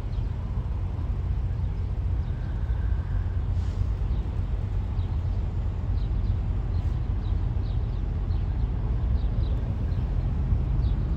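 Steady low road and engine rumble heard inside a moving vehicle's cabin, with a few faint light clicks in the second half.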